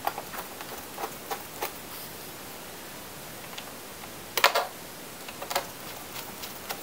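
Light clicks and taps of a small Phillips screwdriver and tiny screws against a MacBook Pro's aluminium bottom case as the case screws are put back in, with a louder cluster of clicks about four and a half seconds in.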